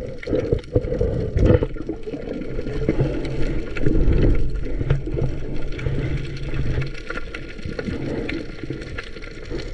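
Water sloshing and rushing around an underwater camera housing as the diver moves at and below the surface: a muffled, low rumble with small knocks, and a steady low hum through the middle few seconds.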